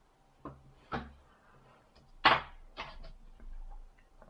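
Small hand-handling clicks and knocks of a mobile phone's plastic parts and small tools on a work mat, several short taps with the loudest a little over two seconds in.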